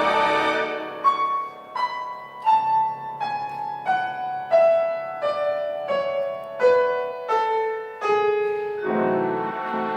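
Slow solo piano music: a chord fades, then single notes are struck one after another, each lower than the last, and a fuller chord comes in near the end.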